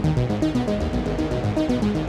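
Background music: electronic synthesizer score with a quick repeating pulse and stepping notes, its deep bass dropped out.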